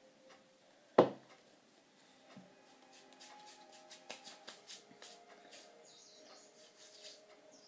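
A single sharp knock about a second in, then faint, irregular squishing and clicking of homemade play dough being kneaded by hand to work food coloring through it.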